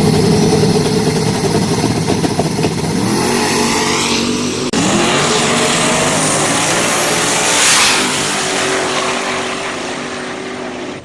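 Boosted drag-race engines at full throttle during a street-drag pass, pitch climbing and dropping back with each gear shift. The sound breaks off abruptly a little before halfway, picks up again, and fades toward the end as the cars pull away down the strip.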